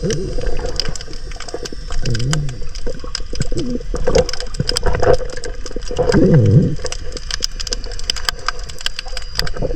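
Underwater sound picked up by a diving camera: a dense crackle of sharp clicks, with a few short low sounds that dip and rise in pitch, the strongest about six seconds in.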